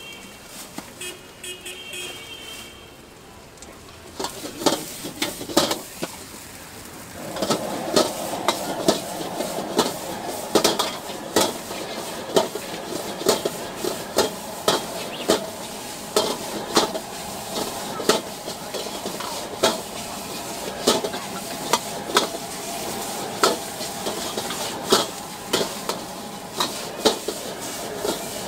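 Metal ladle clanking and scraping against a large iron wok as noodles and cabbage are stir-fried over high heat, with a steady sizzle. The clanks start about four seconds in and come about once or twice a second, and the sizzle grows louder about seven seconds in.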